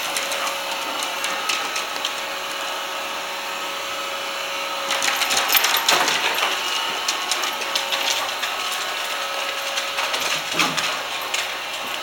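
Roomba robot vacuum running on a hardwood floor: a steady whir with a faint hum, with scattered clicks and taps that get busier about five seconds in.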